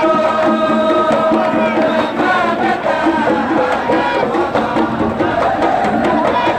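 Hadhrami 'idda folk music: men chanting together over a steady beat of hand-held drums, with a long held note for the first couple of seconds before the chant moves on.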